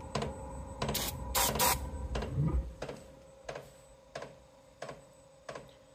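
Two short hisses of aerosol ether sprayed into a Chinese diesel parking heater's air intake, about a second in, to help it light. Under them the heater's fuel dosing pump ticks steadily, about three ticks every two seconds, and a low rumble fades out about halfway through.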